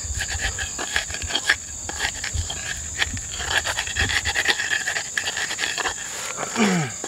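Pestle grinding in a mortar (ulekan and cobek), crushing rujak dressing, heard as a quick run of short scrapes and knocks over a steady high trill of crickets. A short falling voice-like sound near the end.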